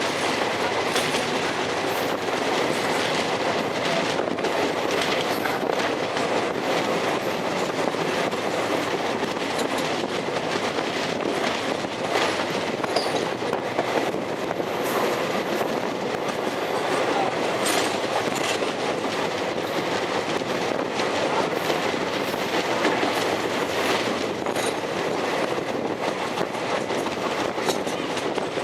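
Train running steadily over the rails, a constant rumble with the wheels clicking irregularly over rail joints.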